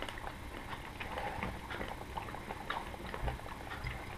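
Faint, irregular crunching of a dry roasted acorn piece being chewed.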